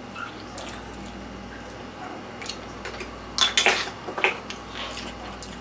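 Tableware clinks and clatters as a metal fork and dishes are handled during a crab meal. There are scattered short clicks, with a sharper cluster about three and a half seconds in.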